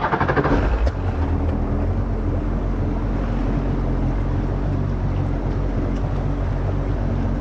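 Kawasaki SX-R 1500 stand-up jet ski's four-cylinder four-stroke engine running steadily without revving, after a quick rattle of clicks in the first second.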